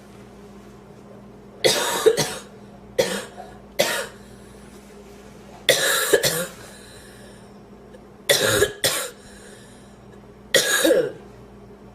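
A woman coughing in about six short, harsh bouts a second or two apart, some of them double coughs. She is trying to clear a piece of sandwich she inhaled and still feels in her windpipe.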